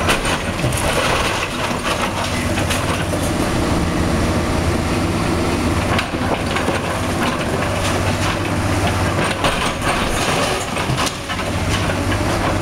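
Caterpillar tracked excavator's diesel engine running steadily while its bucket crunches through concrete blocks and rubble, with repeated cracks and clatters of breaking debris.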